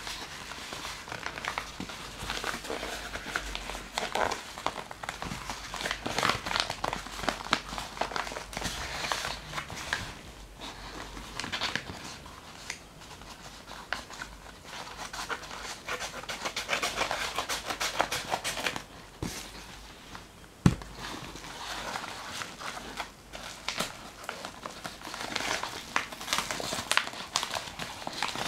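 Plastic mailer bag crinkling and rustling as it is handled, cut open with scissors and its bubble-wrap lining torn, with one sharp knock about two-thirds of the way through.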